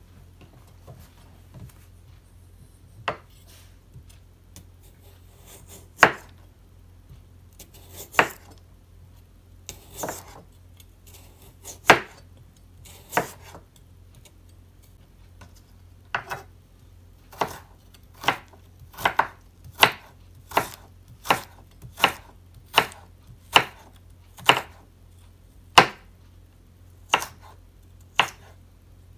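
Kitchen knife chopping a raw carrot on a wooden cutting board, each stroke a sharp knock of the blade through the carrot onto the board. The knocks come about every two seconds at first, then quicken to a steady pace of a little more than one a second from about halfway.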